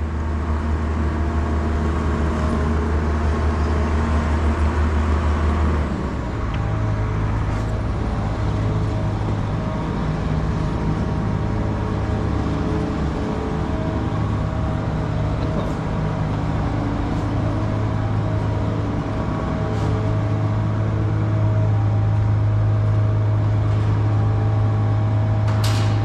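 Combine harvester's diesel engine running steadily. About six seconds in its speed steps up, and it grows somewhat louder near the end.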